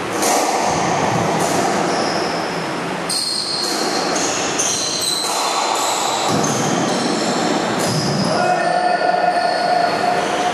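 Squash rally: players' court shoes squeak again and again on the wooden floor in short high chirps, with sharp knocks of the ball being struck and hitting the walls.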